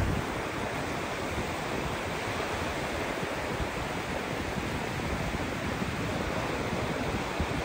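Small waves breaking and washing up on a flat sandy beach: a steady surf hiss, with wind gusting on the microphone.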